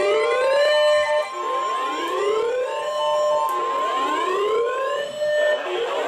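A siren whooping: its pitch sweeps upward again and again, a new rise starting about every second and a half. A steady tone runs underneath and stops near the end.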